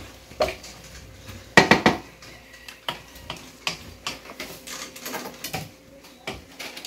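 Kitchen pots, pans and metal utensils clattering and knocking in irregular strokes during cooking, with the loudest clatter about one and a half seconds in.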